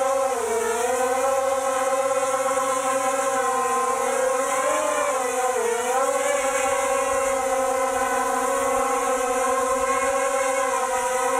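Mini quadcopter's four RCX 2206 1950KV brushless motors and propellers whining steadily in a hover. The pitch wavers slightly as the throttle is corrected, dipping briefly about half a second in and again near six seconds in.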